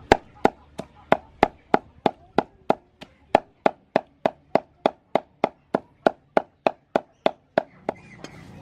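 Knife chopping on a cutting board in a steady rhythm of about three strokes a second, stopping near the end.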